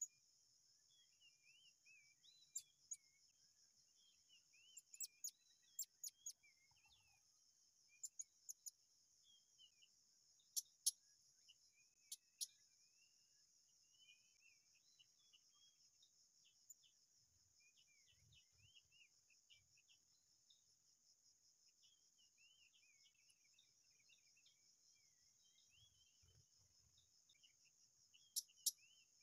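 Faint steady drone of insects with small birds twittering over it, broken by short, sharp high-pitched calls that come in quick pairs and clusters several times, loudest around ten to twelve seconds in and again near the end.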